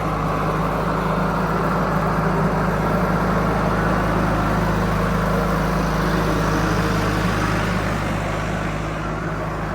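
Heavy diesel engine running at a steady speed, easing off slightly near the end.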